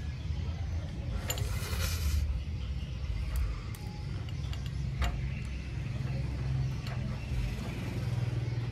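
Small clicks and taps of people eating grilled cockles and loach off bamboo skewers, over a steady low rumble, with a brief hissing rustle about a second in.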